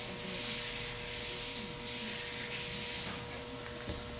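Steady hissing background noise of a warehouse with a faint constant hum, and a light tick near the end.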